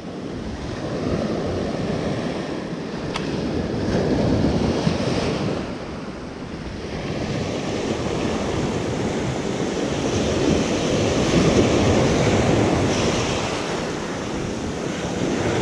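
Small Pacific surf waves breaking and washing up a coarse sand and pebble beach, swelling and fading every few seconds, with wind buffeting the microphone.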